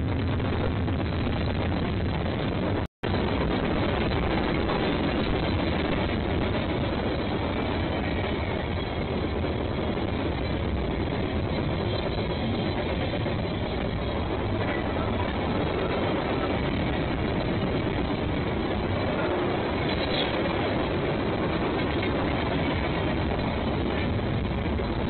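Freight train running, a steady rumble that does not rise or fall. The sound drops out for an instant about three seconds in.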